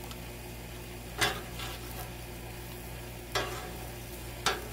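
A metal spatula scraping across the steel top of a Blackstone griddle three times, sharp strokes about a second in, just past three seconds and near the end, as a burger patty is scooped off. Under it, burger patties frying with a steady sizzle.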